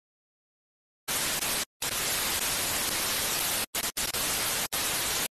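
Hiss of white-noise static that starts about a second in and cuts out and back in abruptly several times.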